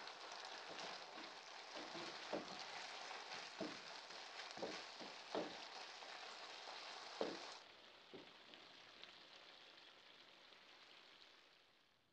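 Chicken and vegetables in sauce sizzling in a coated wok while a wooden spatula stirs them, knocking and scraping against the pan every second or so. The sizzle drops to a quieter level about two-thirds of the way through and fades out near the end.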